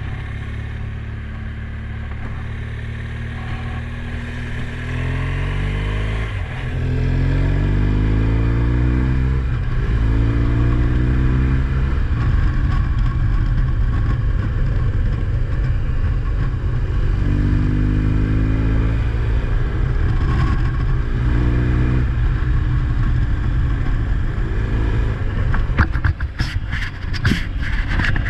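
Motor vehicle engine pulling away and accelerating, its pitch climbing and dropping back several times as it shifts up through the gears, then running on steadily. A quick run of sharp clattering knocks comes near the end.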